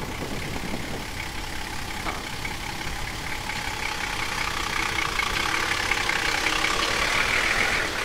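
Toyota LandCruiser 60 Series engine running at low speed as it crawls through potholes towing a camper trailer, growing louder as it comes close and passes.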